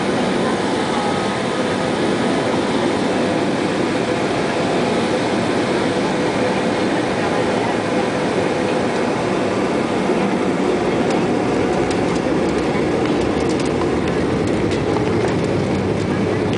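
Inside the cabin of an Embraer E190 on its takeoff roll: the two GE CF34-10E turbofans running at takeoff thrust, a steady loud rush mixed with the rumble of the wheels on the runway. Light clicks come in during the second half.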